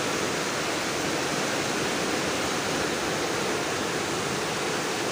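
Muddy floodwater rushing down a lane in a steady, unbroken rush of churning water. The flood is rising.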